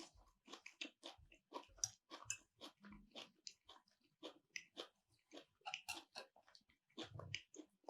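A person chewing food with the mouth close to the microphone. The sound is faint, irregular wet clicks and smacks, a few a second.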